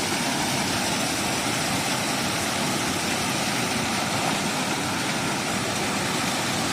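Steady rushing roar of falling water at a small waterfall, even and unbroken.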